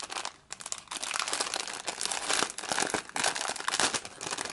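Clear plastic packaging bag crinkling and rustling in quick bursts as hands open it and slide a white pouch out.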